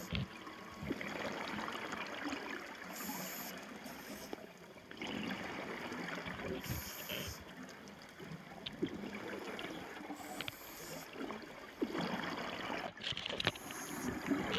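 Scuba diver's regulator breathing heard underwater: a burst of exhaled bubbles about every three to four seconds over a steady watery hiss and gurgle.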